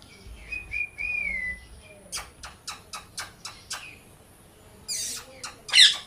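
Indian ringneck parakeet calling: a short whistle that bends up and down in pitch, then a quick run of about seven sharp chirps, then two harsh screeches near the end, the last one the loudest.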